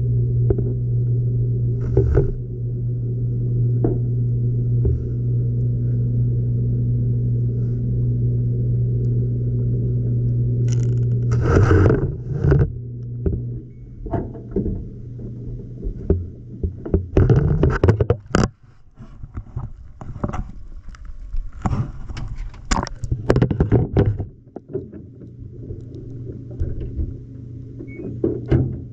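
An LG washing machine heard from inside its drum mid-cycle: a steady motor hum, then from about eleven seconds in irregular thuds and clatter as the drum turns and the load tumbles, with the hum fading for a while and returning near the end.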